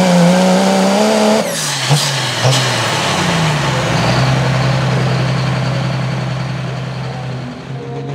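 Pro street diesel pickup engine running flat out under load, then let off about a second and a half in: the pitch drops sharply, with two short sharp cracks, and the engine settles to a steady idle at the end of the pull.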